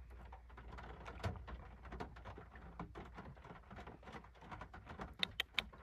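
Light drizzle tapping on the car roof, heard from inside the cabin: faint, irregular small ticks of raindrops, with a few sharper taps near the end.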